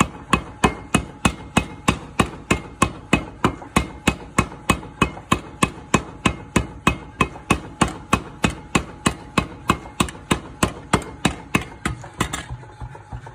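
Mechanical power hammer pounding a red-hot iron sheet flat, in a fast even rhythm of about four blows a second. The blows stop near the end, leaving the hammer's electric motor running.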